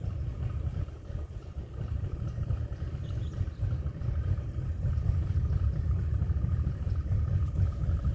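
Boat's motor running steadily at low speed, a low rumble with a faint engine tone above it.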